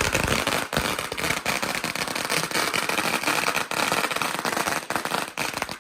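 A string of firecrackers going off in a dense, continuous crackle of rapid bangs that stops abruptly at the end.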